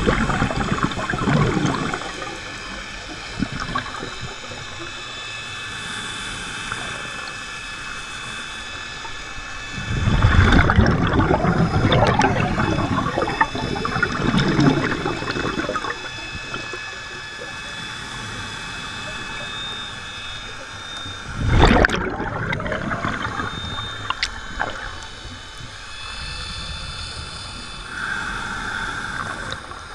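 Underwater, scuba regulator exhalations: bubbles rush out in loud surges several times, the longest about a third of the way through and a short sharp one about two-thirds through. Between them there is a steady underwater hiss.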